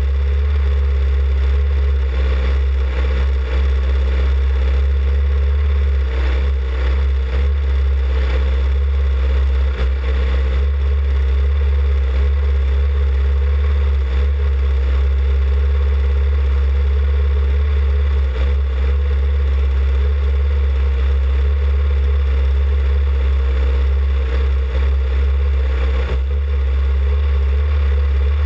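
Formula 2000 race car's engine running steadily at low revs, heard through an onboard camera as a loud, constant low drone.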